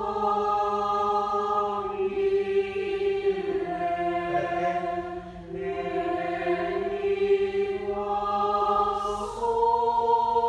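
A choral group sings sustained chords in moving-do solfège, several voice parts holding each chord for a second or two before moving together to the next.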